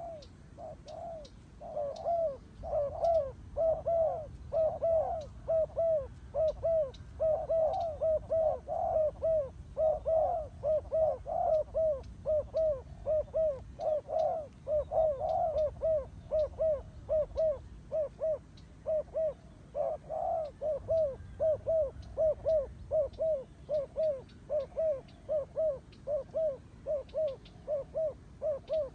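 Turtle doves cooing: a fast, even run of short coos, about two a second, going on without a break.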